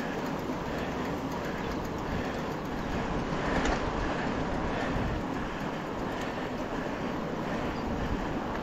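Mountain bike rolling over a rough dirt trail: a steady rumble of tyres and wind, with the bike rattling.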